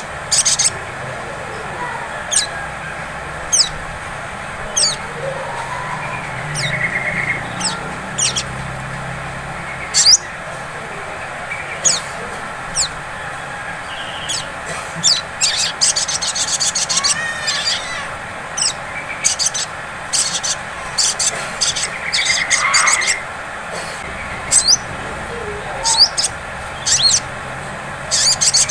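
Olive-backed sunbird calling: sharp, very high single chirps at irregular intervals, breaking twice into quick twittering runs, with a few lower sliding notes.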